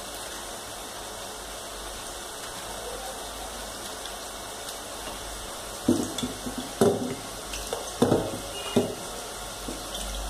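Pieces of cut okra dropping into a steel bowl of water: a handful of short splashes and knocks bunched between about six and nine seconds in, over steady faint room noise.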